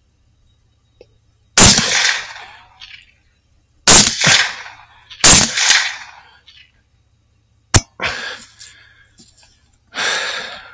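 Three rifle shots from a Savage MSR 10 semi-automatic in 6.5 Creedmoor, each with a short ringing tail. The second and third come about a second and a half apart. A sharp click follows, and a softer noisy burst comes near the end.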